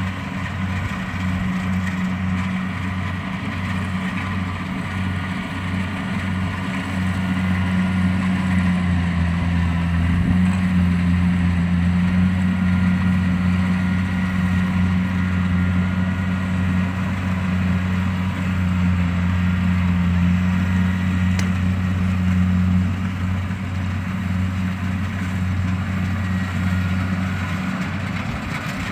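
Kubota DC-70 combine harvester's diesel engine running steadily with a low, even drone. It pulses slightly in the first few seconds and dips briefly in pitch about ten seconds in.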